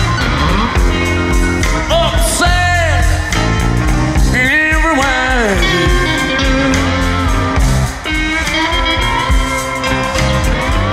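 A live electric blues band playing: electric guitars over bass and drums, with a man singing lead.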